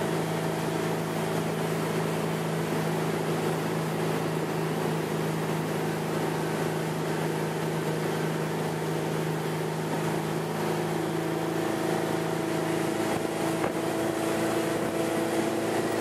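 Motorboat engine running steadily at speed while towing a water skier, under a rush of wake, spray and wind. Its hum changes pitch slightly between about eleven and thirteen seconds in.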